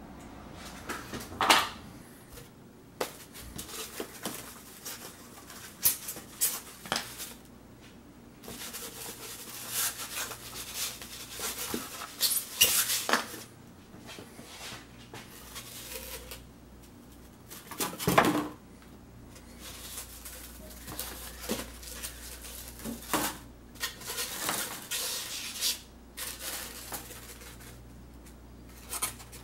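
Workbench handling noises: heavy bricks lifted off and set down with scattered knocks and scrapes, then rigid extruded-polystyrene foam pieces handled and pulled apart. The loudest knocks come about a second and a half in and again about eighteen seconds in.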